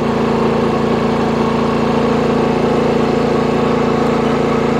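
Predator 9500 inverter generator's 459cc engine running steadily under a heavy electrical load of about 7 kilowatts, close to its 7,600-watt running rating.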